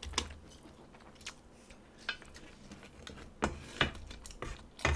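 Quiet eating sounds at the table: a handful of soft clicks and taps from chewing and a utensil on a dish, the clearest in the last second and a half.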